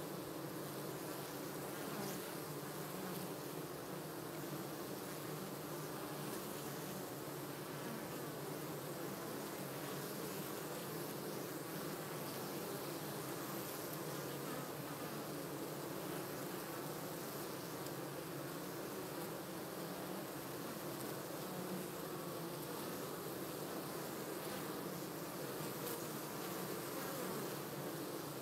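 Many honeybees buzzing at a busy hive entrance: a steady, dense hum of wings.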